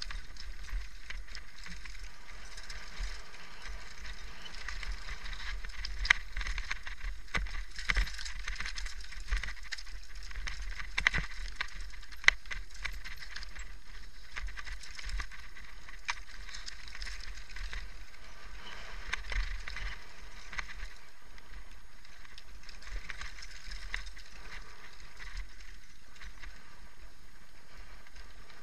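Mountain bike rolling down a rocky dirt trail: tyres running over loose stones, with the bike rattling and a steady low rumble. Sharp knocks come from rocks and bumps several times, the loudest about 6 and 12 seconds in.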